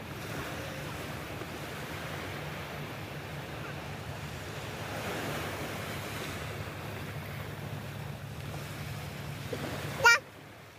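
Small waves washing onto the shore and around rocks, a steady hiss of surf. Near the end comes a brief loud sharp sound, after which the surf noise drops away abruptly.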